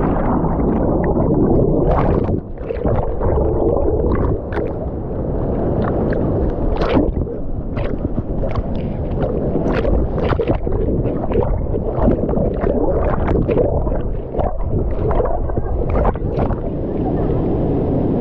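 Waterfall water rushing and churning, a loud muffled roar with many sharp pops and clicks scattered through it.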